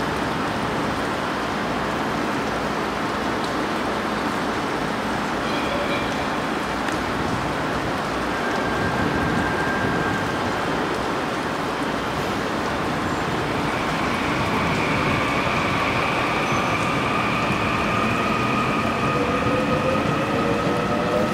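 Korail Suin Line electric multiple unit at the platform over a steady hiss; from about two-thirds of the way in, its traction motors give a whine of several tones that slowly rise in pitch as the train starts to pull away, with a lower rising tone joining near the end.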